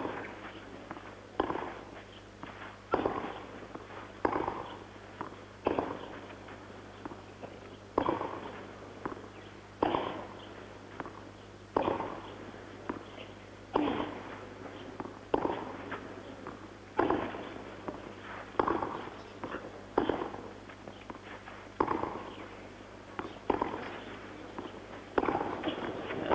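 Tennis balls struck back and forth by rackets in a long baseline rally on a clay court, a hit about every one and a half to two seconds, each with a short echo. Crowd noise swells near the end.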